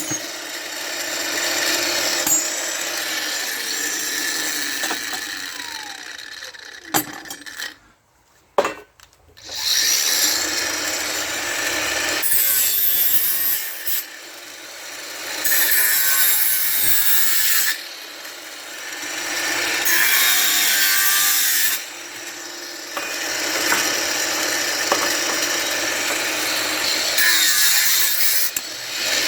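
A saw cutting through brass scrap in a series of loud, rasping runs that start and stop abruptly. There is a short quiet break about eight seconds in.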